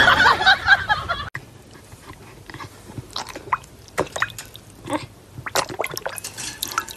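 A dog lapping and splashing water in a plastic bowl: irregular wet slurps and splashes, several a second. About the first second is taken up by a louder, noisier jumble before it breaks off sharply.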